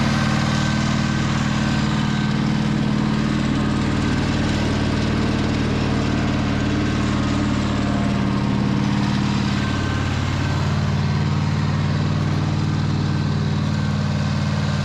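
Pasquali 425 compact tractor's two-cylinder engine running steadily under load, pulling a plough through the soil; its note shifts slightly about ten seconds in.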